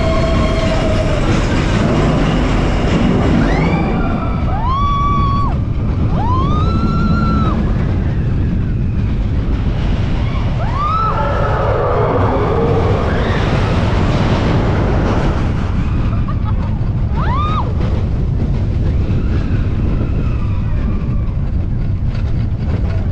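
Expedition Everest roller coaster train running fast, with a steady deep rumble of the wheels on the track and heavy wind on the microphone. Riders let out short rising-and-falling screams several times, about four seconds in and again around eleven and seventeen seconds.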